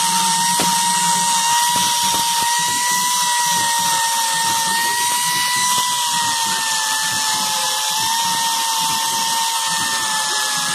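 Handheld angle grinder running at full speed with a steady high whine over a hiss, its disc grinding the steel of a hammer head and throwing sparks.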